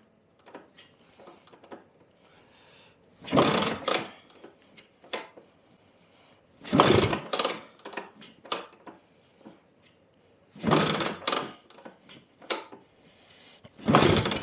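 Lambretta scooter kickstarted four times, about three to four seconds apart: each kick is a second-long metallic clatter as the two-stroke engine is spun over without catching, with small clicks between kicks. The kickstart travels too far down, which the owner puts down to a kickstart ramp needing adjustment.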